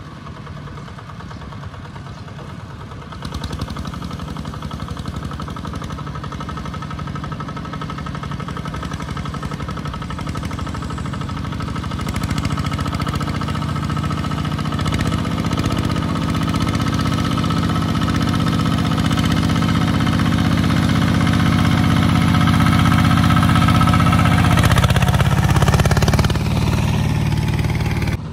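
Kubota two-wheel walking tractor's single-cylinder diesel engine chugging under load as it hauls a trailer of rice sacks through deep mud. It grows steadily louder as it approaches, is loudest near the end, and its note shifts as it passes close by.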